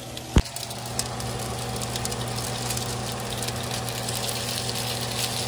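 Pierogies and onions frying in a pan, a crackling sizzle that builds from about a second in over a steady low hum. A single sharp clack about half a second in.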